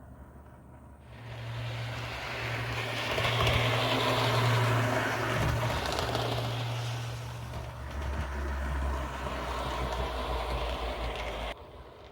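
HO-scale Proto 2000 Alco PA model locomotive running on track, its motor and worm-gear drive whirring with a low hum. It starts up about a second in, the hum drops in pitch about eight seconds in, and it stops abruptly near the end.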